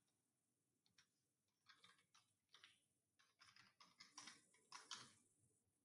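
Faint typing on a computer keyboard: an irregular run of short key clicks.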